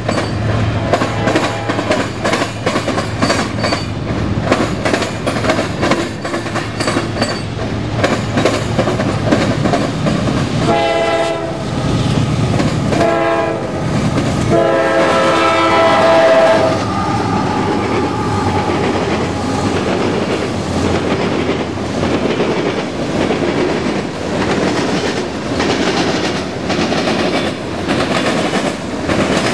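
Freight cars rolling past close by, wheels clattering over the rail joints in a steady run of clicks. Partway through, a diesel locomotive horn sounds three times: a blast of about a second, a short one, then a longer, louder one.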